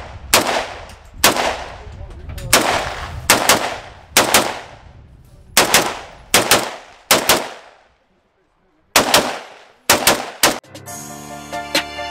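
AK-pattern rifle fired in single shots, roughly one a second, each crack trailing off in a short echo. There is a brief dead silence about eight seconds in. Music comes in for the last second and a half.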